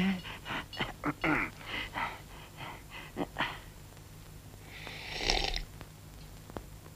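A cartoon character's voice making a quick run of short breathy sounds, not words, followed about five seconds in by one longer breathy hiss.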